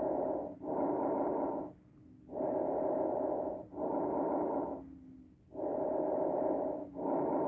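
Recorded bronchovesicular breath sounds, the kind heard on auscultation of the chest: three breaths, each an inhale and an exhale of about equal length with only a brief gap between them. This mix of vesicular murmur and laryngotracheal sound is the normal finding over the tracheal bifurcation and the large bronchi.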